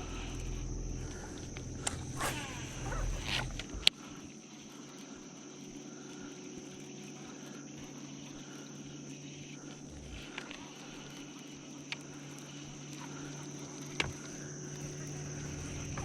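Insects droning steadily at one high pitch, with a low steady hum underneath and a few sharp clicks and knocks, the loudest about four seconds in.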